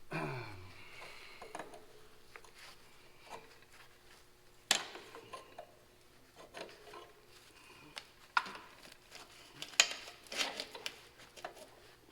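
Hand tools and metal parts clinking and knocking now and then as a bolted PTO lever is worked loose, with three sharp clanks about five, eight and ten seconds in.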